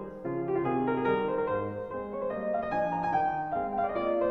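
Piano music, a quick succession of notes over sustained chords.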